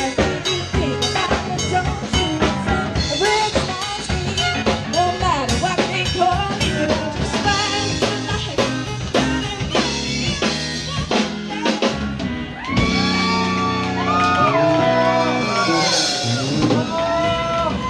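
Live rock band playing: electric guitar, drum kit and a female lead voice. About two-thirds of the way through, the busy drumming gives way to long held notes.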